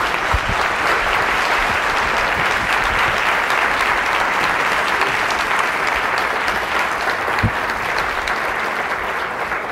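Audience applauding steadily, many hands clapping together, easing off slightly near the end.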